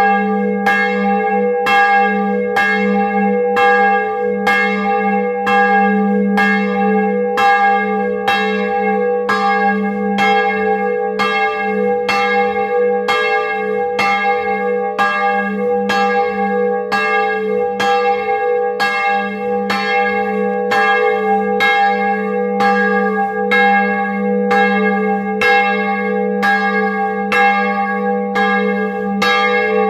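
Bronze church bell from 1658, tuned to G sharp, swinging in full peal with its clapper striking in a steady, even rhythm. Each stroke rings on into the next, so a low hum and the bell's higher partials sound without a break.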